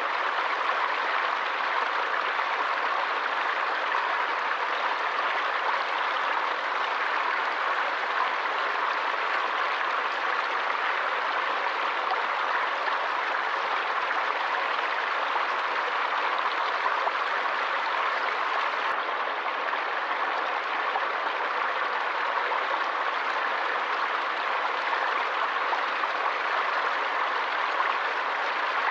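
Forest stream with water rushing steadily over rocks, an even, unbroken hiss-like wash of sound.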